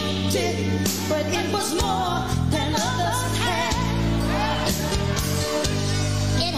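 A song played on air: a lead voice singing over sustained bass notes and backing instruments.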